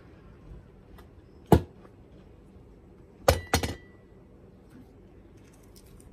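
Sharp clicks and knocks from potting: plant pots and tools handled on the potting table. There is one loud knock about a second and a half in, then a quick pair about two seconds later, the first ringing briefly.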